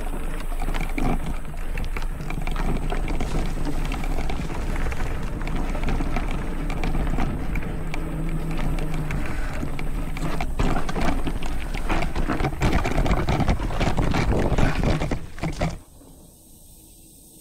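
Specialized Rockhopper mountain bike being ridden over rough ground: a steady low rumble with dense rattling and clatter, which cuts off sharply near the end.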